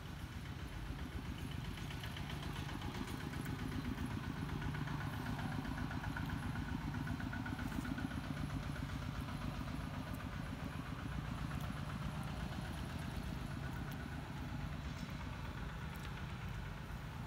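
A motor engine running steadily. It grows louder toward the middle and eases off after.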